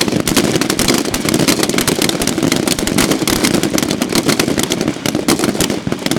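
A firing line of many service rifles shooting at once, the shots of many shooters overlapping into a dense, continuous crackle of gunfire.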